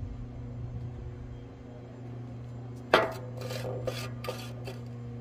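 Beer pouring from an aluminium can into a glass, then about three seconds in a sharp knock of the can against the glass tabletop, followed by a few short scraping, rubbing sounds. A steady low hum runs underneath.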